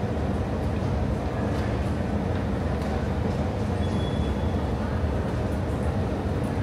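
Steady low background rumble of city or station noise, with faint voices mixed in.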